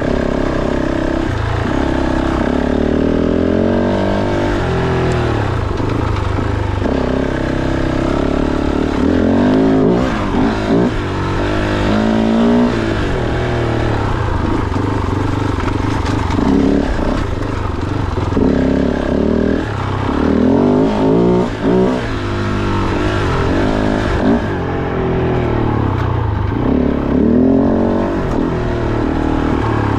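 Kove 450 Rally's single-cylinder engine under way on a dirt trail, the throttle opening and closing again and again so the pitch keeps rising and falling.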